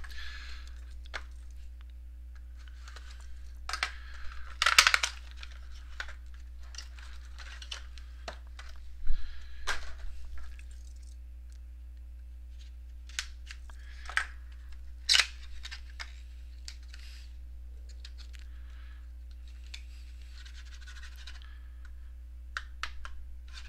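Plastic wrapping crinkling and tearing, with intermittent clicks and knocks of cardboard being handled, as a sealed trading-card box is opened. A steady electrical hum runs underneath.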